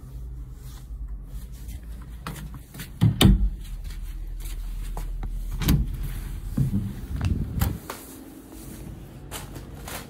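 A handheld phone camera rubbing and knocking as it is carried through a shower-room door, with the door opening and shutting. There is a loud knock about three seconds in and several more knocks and thumps a few seconds later, and light footsteps in slippers near the end.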